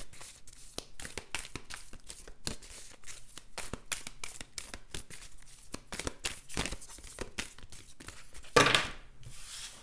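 Tarot cards being shuffled by hand: many quick, irregular clicks and flicks of cards against each other, with one louder rustle near the end.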